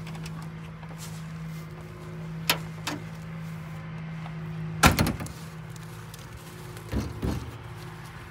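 A vehicle engine idles with a steady low hum. A couple of clicks are followed about five seconds in by a loud car-door slam, then two softer thumps near the end.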